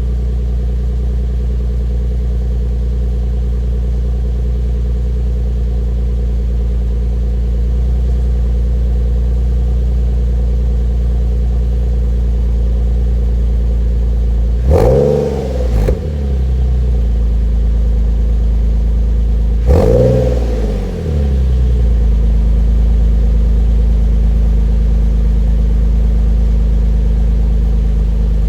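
Nissan 370Z's 3.7-litre V6 idling steadily through an HKS Hi-Power dual stainless catback exhaust shortly after a cold start. It is blipped twice, about halfway through and again five seconds later, each rev rising and falling back to idle within about a second.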